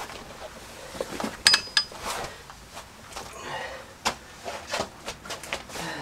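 Scattered metallic clinks and knocks of hand tools and parts being handled while working on a car's front anti-roll bar bushings, with a short cluster of clinks about one and a half seconds in.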